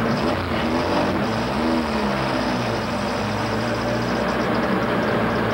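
Race truck's engine running hard under racing load, heard from inside the cab, with road and wind noise underneath. Its pitch rises and falls briefly between about one and two seconds in.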